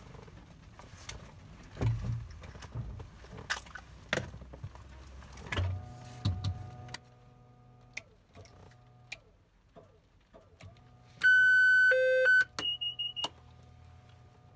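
Cessna 208 Caravan cockpit during pre-start checks: scattered clicks and knocks of switches being set, then a steady electrical hum comes on about six seconds in. About eleven seconds in a loud, high electronic warning tone sounds for about a second, followed by a lower tone and a short run of higher beeps.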